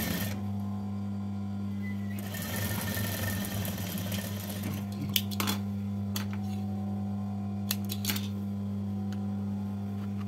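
Sewing machine stitching a seam in one run of about two and a half seconds, starting about two seconds in, while the shoulder seams of a dress are joined. A few sharp clicks follow, over a steady low hum.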